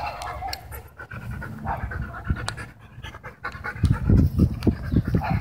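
Dogs panting hard during tug-of-war play, the panting becoming louder and quicker in the last second and a half.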